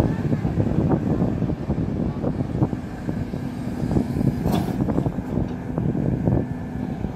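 SDLG hydraulic crawler excavator's diesel engine running under load while it digs, with irregular knocks and clunks throughout.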